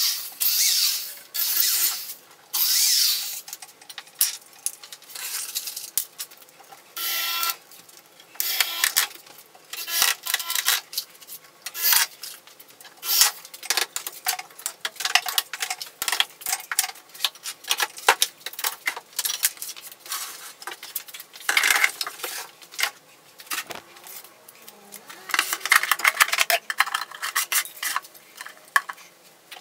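Workshop work sounds: a handheld electric drill boring into wood in three short bursts near the start, then a long run of quick clicks, knocks and metallic clinks as clamps and tools are handled.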